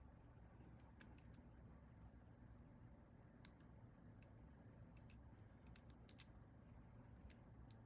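Near silence with faint, irregular small clicks scattered throughout, over a low steady hum.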